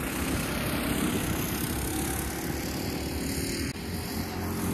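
Small single-cylinder engines of two mini bikes running at speed during a top-speed race, a steady engine drone whose hum grows clearer in the second half.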